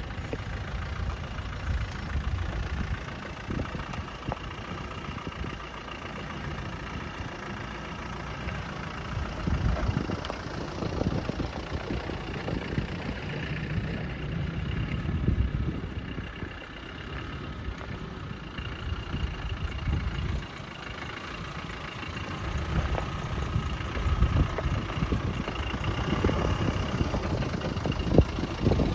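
4x4 engine running at low speed, with frequent irregular knocks and rattles over the top and the level swelling now and then.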